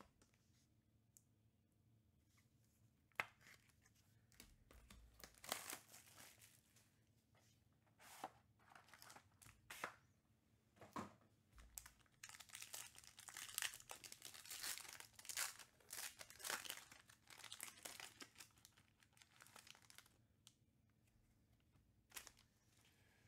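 Foil pack of trading cards being torn open and crinkled by hand, with scattered rustles and clicks of cards and plastic sleeves being handled. The crinkling is densest about halfway through, then thins out to light card shuffling.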